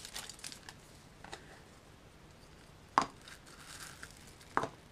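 Brief crinkling of a torn wrapper, then a single sharp click about three seconds in as a plastic surprise-egg capsule is pried open, and a second, softer click near the end.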